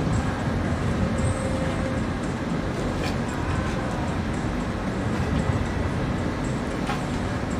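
Steady low rumble of harbour background noise, with a few faint ticks.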